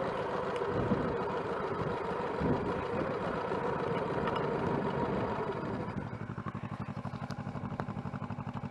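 Motorcycle engine running at low speed, then settling about six seconds in into an even idle with a fast, regular pulse.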